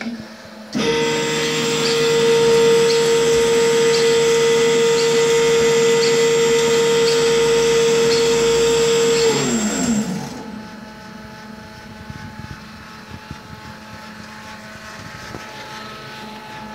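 A small electric motor starts about a second in and runs at a steady high-pitched whine for about eight seconds, with a light tick about once a second, then winds down with a falling pitch and stops.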